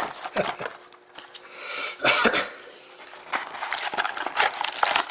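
A man coughs once about two seconds in. Around it are short clicks and rustles of trading cards and their packaging being handled.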